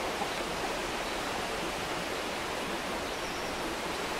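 Steady, even background hiss with no distinct sounds in it.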